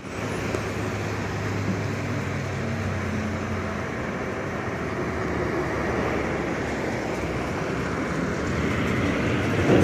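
Diesel engines of heavy lorries running on a hairpin-bend mountain road, with a steady low engine hum, growing louder near the end as a lorry passes close by.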